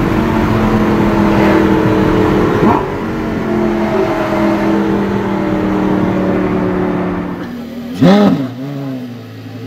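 Engine drone and road noise at steady motorway cruise, heard from inside a car cabin. About eight seconds in, the Porsche Carrera GT's 5.7-litre V10 gives one sharp throttle blip while standing, rising and falling within half a second. It is the loudest sound here, and it settles into a steady idle.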